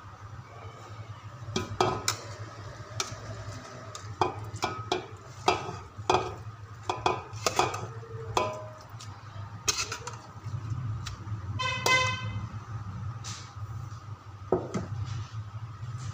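Metal spoon clinking and scraping against an aluminium cooking pot and a steel bowl as a vegetable-and-chicken mixture is tipped onto boiled rice and spread, in a run of sharp irregular clinks. A short horn-like beep sounds about twelve seconds in.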